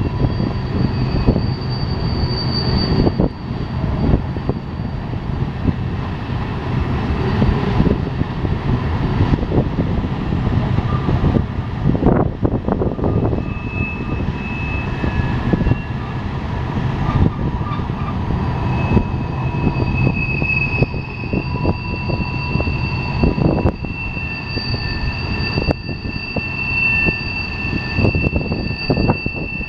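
Freight train cars rolling through a tight curve: a steady low rumble and clatter of wheels on rail, with high-pitched wheel flange squeals coming and going, held longest in the second half.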